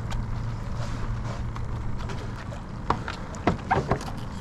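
Sounds aboard a small open skiff: a steady low rumble that fades out about two and a half seconds in, then several short knocks and clatters.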